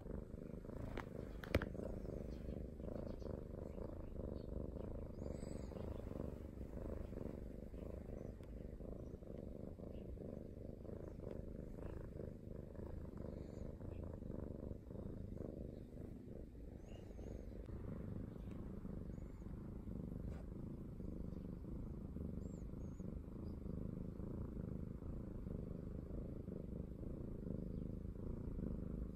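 Domestic cat purring steadily and continuously, with one sharp click about a second and a half in.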